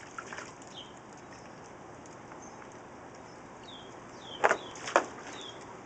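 Small birds chirping, short falling cheeps repeated every second or so, with two sharp loud clacks about a second apart near the end.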